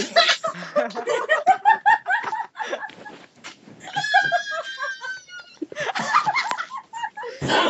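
People laughing hard over a voice call in short, choppy bursts, with a high-pitched squealing laugh that slides down in pitch about four seconds in.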